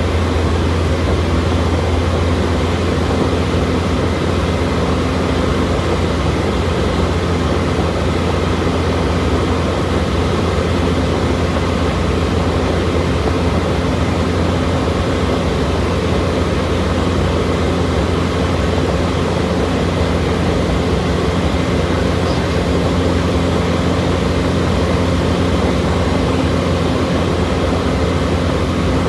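Light propeller airplane in cruise flight, heard from inside the cockpit: a steady, unbroken drone of engine and propeller with a strong low hum.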